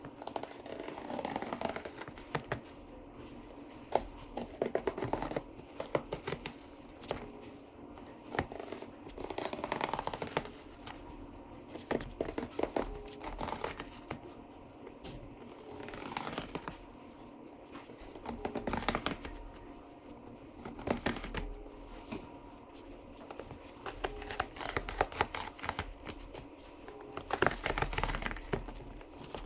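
Razor blade scoring through motorcycle seat foam and pieces of foam being torn out: irregular scratchy, crackling strokes that come in clusters every few seconds.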